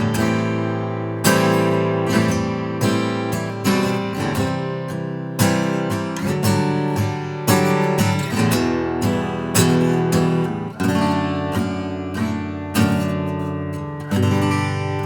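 J200-style jumbo acoustic guitar being strummed, chords struck every second or two and left to ring between strums.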